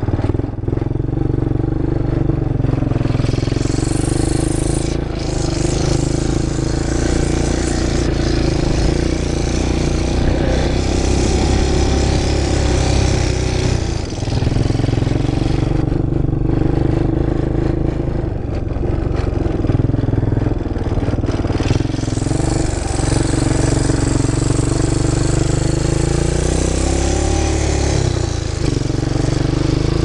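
Four-wheeler (ATV) engine running under way, its pitch rising and falling as the throttle changes.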